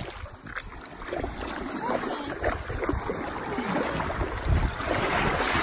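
Shallow surf washing up over wet sand, with wind buffeting the microphone as a low rumble, growing louder toward the end.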